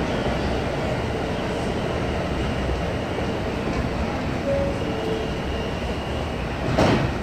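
New York City subway train standing at a platform with its doors open, a steady hum. About four and a half seconds in, a two-note falling door chime sounds. Near the end the doors slide shut with a loud thump.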